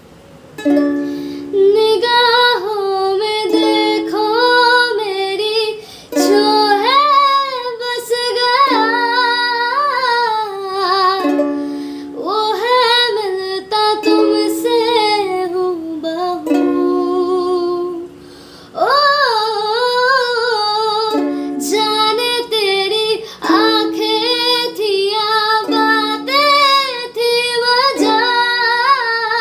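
A woman singing a slow Hindi film song to ukulele accompaniment, with short breaks between phrases about 6 and 18 seconds in.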